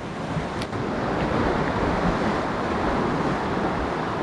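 Steady rush of ocean surf, mixed with wind.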